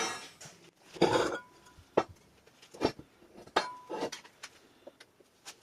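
Metal clinks and knocks from steel vise parts and hand tools being handled and set down during disassembly: about six separate strikes, two of them ringing briefly.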